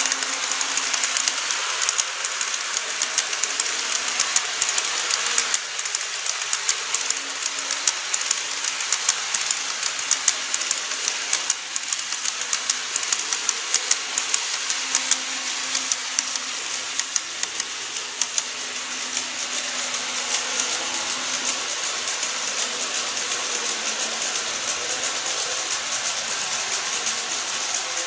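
Model train of an EH200 electric locomotive hauling a long rake of Taki 1000 tank wagons, running along the track: a dense, rapid clicking of wheels over rail joints over a steady running noise, with a faint motor hum.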